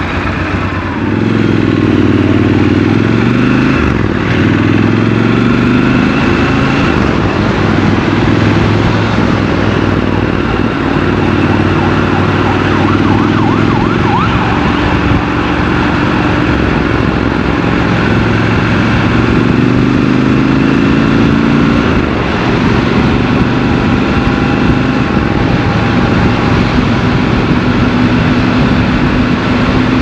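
Triumph Scrambler 1200 XC's parallel-twin engine pulling away from a standstill about a second in, then running under load through the gears, its note stepping with each shift.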